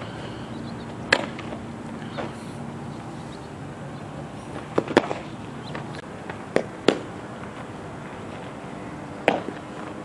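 Several sharp smacks of a softball being fielded in a leather glove at first base, some coming in close pairs, over a steady outdoor background.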